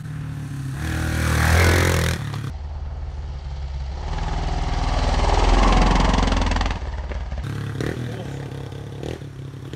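Dirt bike engine revving hard as it rides past close by, with two loud surges: one about a second and a half in, and a longer one around five to six seconds in.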